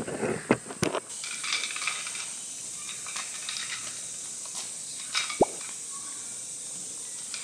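Tarp pole being handled and adjusted: a few knocks and rattles in the first second and one sharp knock about five seconds in, over a steady high hiss.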